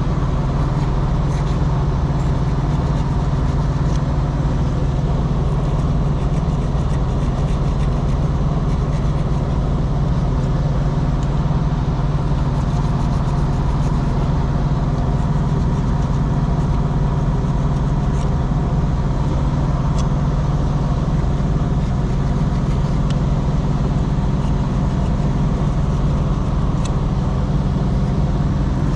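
An engine idling steadily, a constant low hum that does not change. A few faint clicks can be heard over it.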